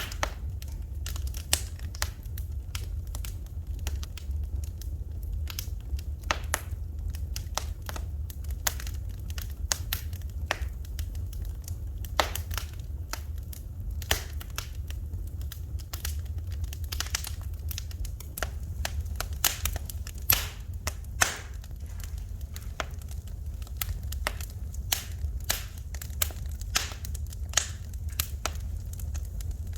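Wood fire burning in a fireplace, crackling with irregular snaps and pops, a few louder than the rest, over a steady low rumble.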